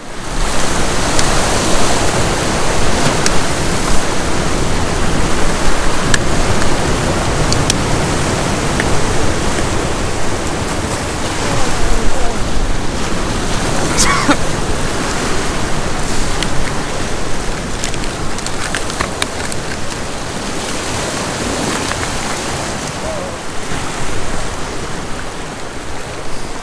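Steady rushing noise of sea surf washing on rocks, mixed with wind.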